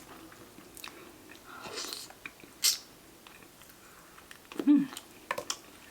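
Close-up chewing of a fried chicken wing, with wet mouth smacks and clicks, and a short hummed "mm" near the end.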